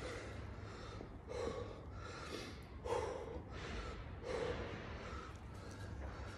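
A man breathing hard between barbell lifts, several heavy breaths about a second and a half apart, winded from the workout. A steady low hum runs underneath.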